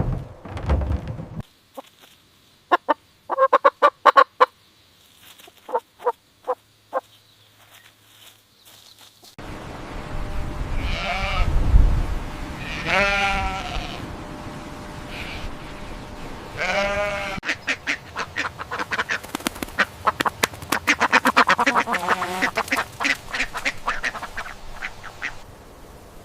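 Waterfowl calling in a few cut-together clips. There are first a handful of short sharp calls, then several long drawn calls, then a fast, dense run of quacking.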